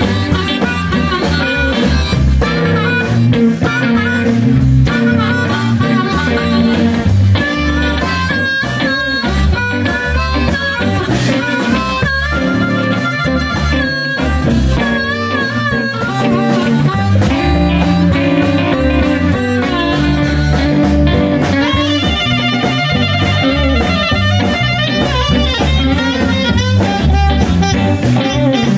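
Live blues band playing an instrumental break: an amplified harmonica solo, played cupped against a handheld microphone, over electric guitar, bass and drum kit. A saxophone takes over the lead near the end.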